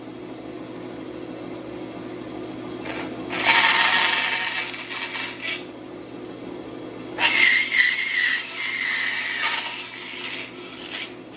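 Bandsaw running steadily, its blade cutting into a wooden block twice: a hissing cut about three seconds in lasting a couple of seconds, and a longer one starting about seven seconds in.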